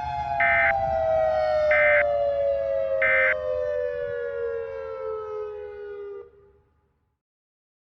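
Three short EAS end-of-message data bursts, the buzzy digital SAME tones, about a second and a quarter apart. Under them a siren winds down, falling steadily in pitch, and cuts off about six seconds in.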